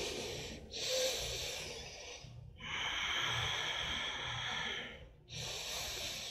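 A woman's slow, deep breaths close to the microphone: long hissing breaths of about two seconds each, with brief pauses between them.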